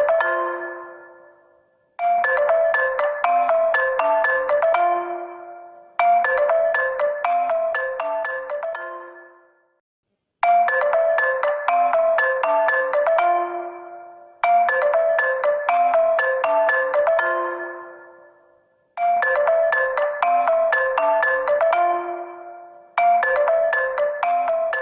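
Honor phone ringtone: a short, bright melody of quick struck notes ending on a low held note and fading out, playing six times over with a brief silence between repeats, about every four seconds.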